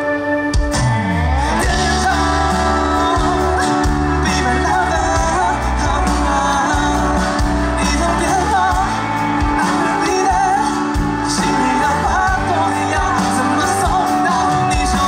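Live pop-rock band playing through a PA: bass, electric guitar, keyboard and drums, with a male lead singer.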